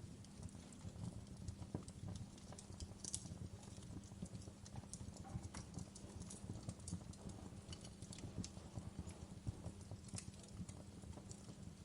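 Fireplace fire crackling: irregular small pops and snaps over a low, steady rumble.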